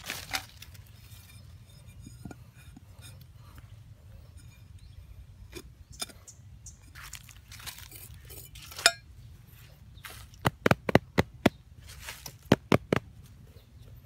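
Small metal blade digging and scraping into packed soil, the dirt crunching. Near the end comes a quick run of about eight sharp stabs into the ground, the loudest sounds here.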